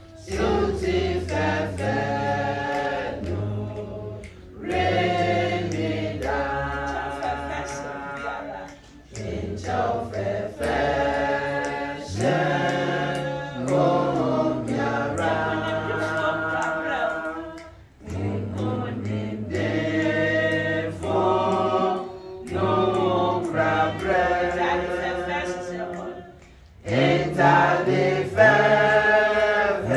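Church choir singing a song in several voices, in phrases of a few seconds broken by brief pauses.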